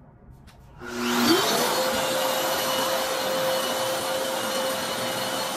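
Long-reach drywall sander and its Festool dust extractor switching on about a second in, the motor's whine rising as it spins up, then running steadily with a loud rushing hiss as the pad sands popcorn texture off the ceiling.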